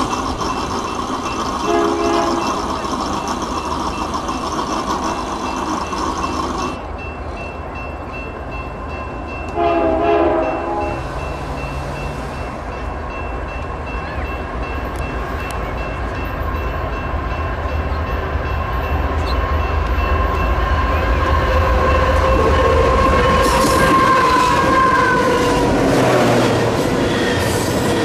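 BNSF diesel freight locomotives sounding their horn: a long blast, then a shorter one about ten seconds in. The engines rumble as they pass, a high thin squeal runs through the middle, and the freight cars rattle by loudly near the end.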